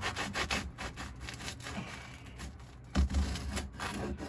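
Serrated knife sawing through a crusty toasted ciabatta roll on a wooden chopping board: short crunchy rasping strokes, about three a second, then slower scraping, with a dull thump about three seconds in.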